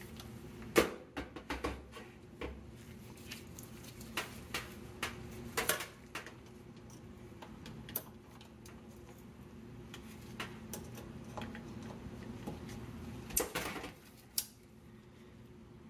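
Light clicks and taps of multimeter test probes being set on the relay terminals of a GE electric range's control board, with a sharper click of the bake relay switching the bake element on. A faint steady hum runs underneath.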